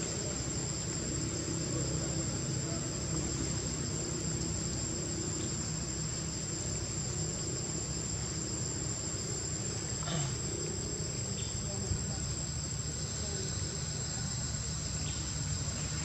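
Steady high-pitched buzzing chorus of insects, with a couple of brief faint clicks in the second half.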